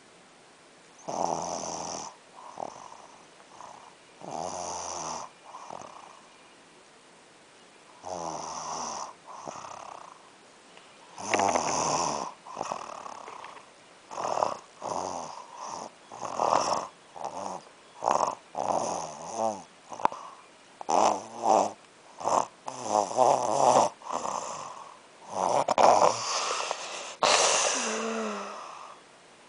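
Snoring during sleep: slow snores a few seconds apart that then come faster and more uneven, about once a second, getting louder toward the end. A last snore ends in a short falling tone.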